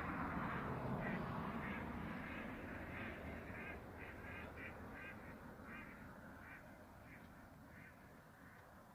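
Ducks quacking in a quick series of short calls, over a low rumble that fades out in the first few seconds; the calls thin out and grow fainter toward the end.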